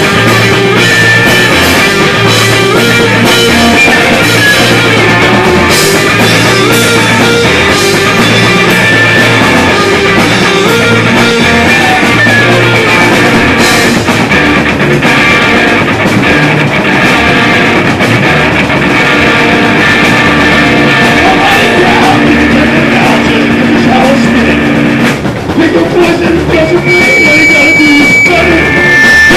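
Rock band playing loud: electric guitar through a Marshall amplifier with a drum kit and bass, and the guitarist singing at the mic near the end. The music dips briefly about 25 seconds in.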